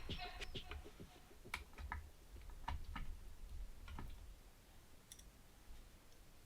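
Faint, irregular clicks and light taps, about a dozen, from small parts of a graphics card's fan cooler being handled and fitted back together.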